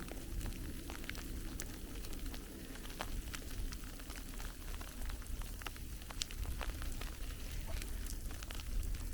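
Light, irregular crackling and ticking over a steady low wind rumble on the microphone, out in falling snow.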